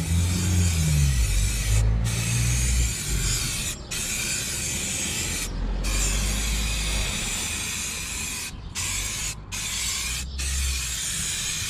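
Aerosol can of gloss black wheel paint spraying in long hissing passes, broken by about six brief releases, as a second coat goes onto a wheel. Wind rumbles on the microphone underneath.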